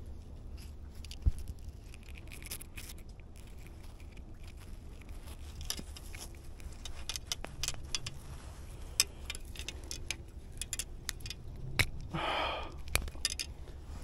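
Needle-nose pliers working a firmly lodged hook out of a small white bass's mouth: scattered small metallic clicks and scrapes, one sharper click about a second in.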